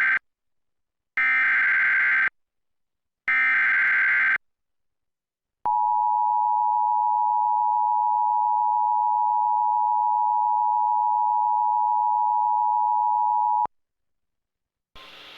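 Emergency Alert System SAME header: the end of one burst of buzzing digital data tones, then two more bursts of about a second each, encoding a flood warning. Then comes the two-tone EAS attention signal, held steady for about eight seconds and cut off sharply, which warns that an emergency message follows.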